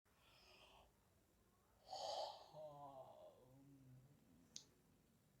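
A person yawning: a breathy intake of air about two seconds in, then a drawn-out voiced exhale of about a second and a half. A single faint click follows near the end.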